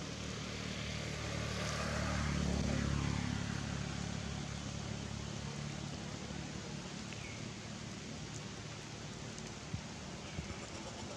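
A motor vehicle passes by: a low engine hum swells to its loudest about two to three seconds in, then fades, over a steady outdoor hiss. There are two faint ticks near the end.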